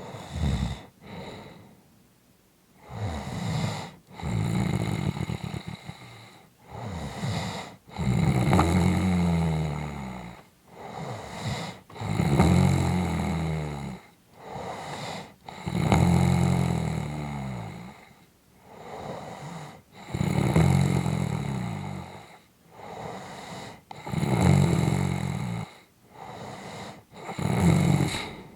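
A person snoring: a loud snore about every four seconds, with shorter, quieter breaths in between.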